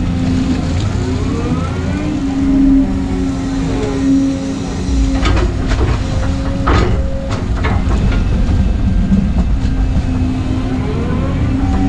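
Volvo EC220 excavator heard from inside the cab: the diesel engine runs with a steady drone while the hydraulics whine up and down in pitch as the house swings and the boom moves. A few sharp metallic clanks come through, the loudest about seven seconds in.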